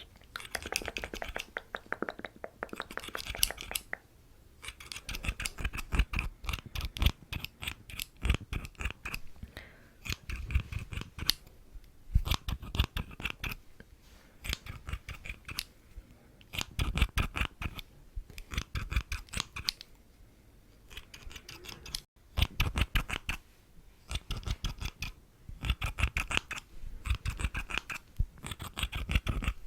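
Scissors snipping over and over close to the microphone, in quick runs of many cuts broken by short pauses.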